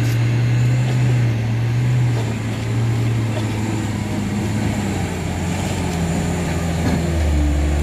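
Mitsubishi Fuso Canter light truck's diesel engine pulling hard up a steep, broken dirt slope, a steady low drone under load. Near the end its note drops lower.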